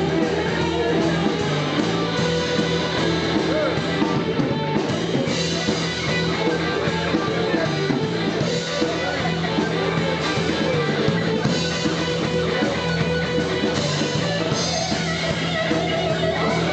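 Blues-rock band playing an instrumental boogie passage, guitar over a steady bass line.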